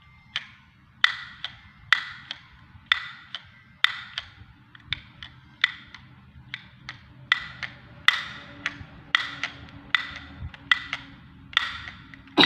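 Toy chattering teeth clacking: sharp hard-plastic clacks about once a second at uneven intervals, with softer clicks in between.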